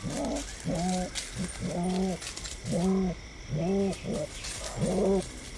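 Nocturnal mongoose calling, which the recordist takes as most likely a white-tailed mongoose. It gives a steady series of about six calls, roughly one a second, each rising and then falling in pitch.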